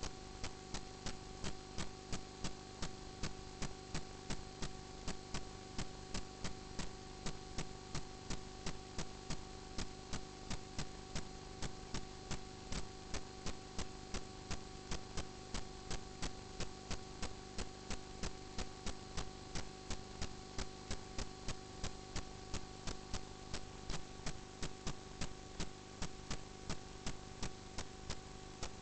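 Steady electrical hum made of many fixed tones, with a regular sharp ticking of about three ticks a second, on the audio track of a sewer inspection camera system.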